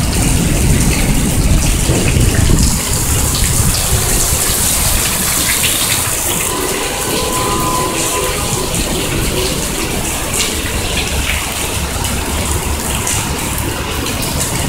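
Heavy rain and running water making a steady rushing sound, a little louder in the first few seconds.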